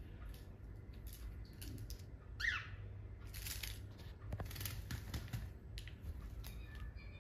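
Cockatiels moving about: scattered light clicks and taps, one short, sharp chirp with a falling pitch about two and a half seconds in, and bursts of feather rustling and wing flapping in the second half.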